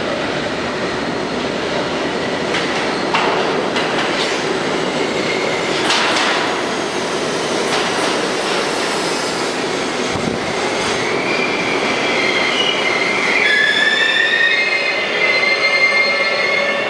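R32 New York City subway train pulling into a station: a steady rumble of steel wheels on rail, with a few sharp clacks over rail joints. From about two-thirds of the way through, a high, wavering squeal of several tones sets in as the train slows to a stop.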